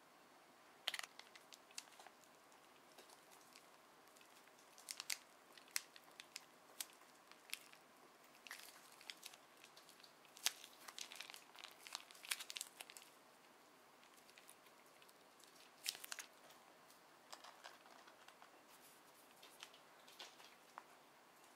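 Scattered small clicks and crinkles of a DIY candy kit being handled: a plastic spoon and a black plastic tray knocked lightly, and a small topping packet crinkling as it is squeezed. Between the clicks it is near silence.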